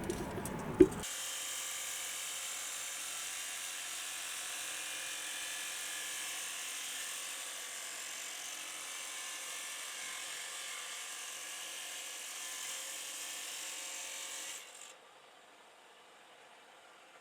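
A steady, even hiss that cuts off suddenly about fifteen seconds in. It is preceded in the first second by a few low knocks.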